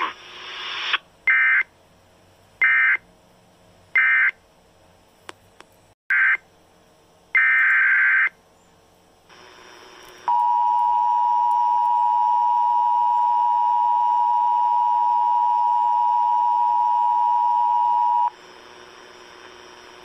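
Emergency Alert System digital data bursts: five short, harsh screeching bursts in the first eight seconds, typical of the coded tones that end one alert and open the next. About ten seconds in, the EAS two-tone attention signal follows, a steady dual-tone held for about eight seconds.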